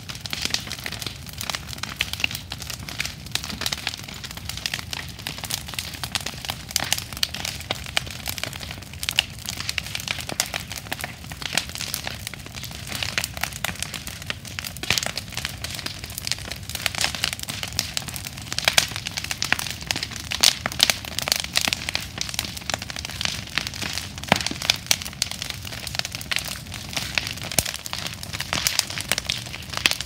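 Wood bonfire of planks and brushwood burning well, a steady dense crackle of many sharp snaps from the burning wood.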